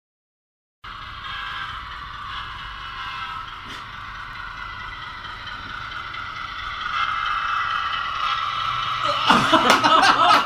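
A model Y class diesel shunter locomotive running on its track: a steady whine of the electric motor with wheel noise on the rails, getting louder as the engine approaches. A burst of voices with sharp clicks joins near the end.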